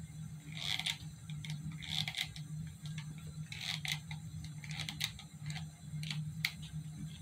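Light scattered clicks and a few short soft rustles as a corded hot glue gun is squeezed and a paper craft piece is handled, over a low steady hum.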